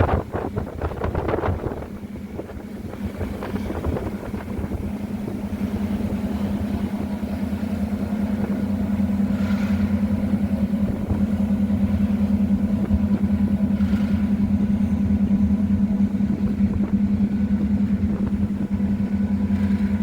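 Car ferry's engines running with a steady low drone that builds up over the first several seconds and then holds, as the ferry gets under way. A little irregular clatter sounds in the first couple of seconds.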